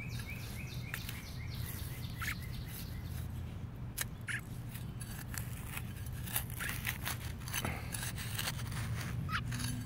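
Scattered soft clicks and scrapes over a steady low hum, with a few short, high, falling chirps from a fledgling American robin.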